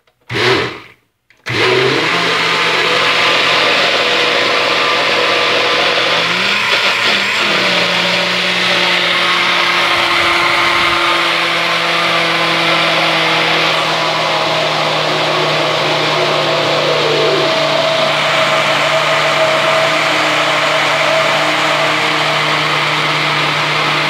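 Walita Delta Eletrônico blender motor running steadily, churning carrots, eggs and oil into carrot cake batter. The load is heavy, since carrots are hard on the blender. It comes on about a second and a half in, after a short blip, and holds a steady pitch.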